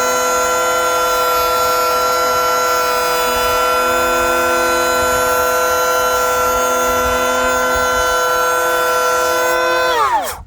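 Cordless brushless electric hand planer running at full speed with a steady high whine as it shaves thin curls off a board. Near the end it is switched off and its pitch falls quickly as the cutterhead spins down.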